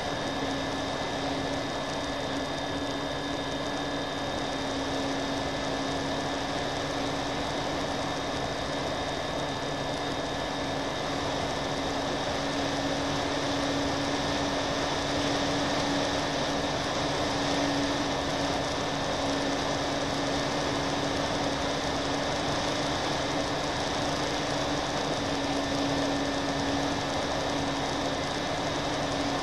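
Twin-engine radio-controlled plane's motors and propellers running steadily in flight, heard from the onboard camera as a constant drone with a rush of air noise.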